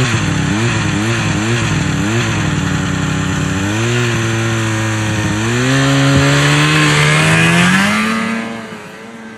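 Engine revving in about five quick blips, then accelerating with a long rising pitch and fading away near the end, as if pulling off.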